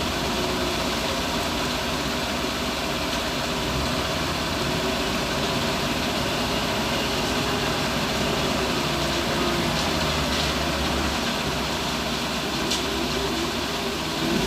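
Heavy construction machine's diesel engine running steadily at a low, even level.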